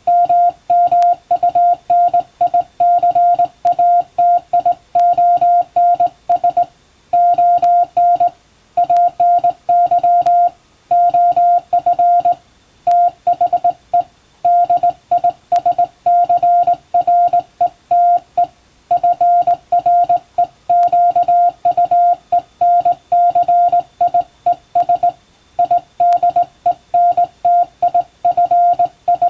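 Morse code tone, a single high-pitched note keyed by hand on a straight telegraph key, sending quick runs of dots and dashes with short breaks between letter groups.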